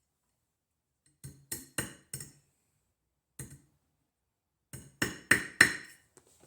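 Hammer blows on a fine silver ring, knocking down a high spot while shaping it. The strikes ring and come in a quick run of four, a single blow, then four more, the last ones loudest.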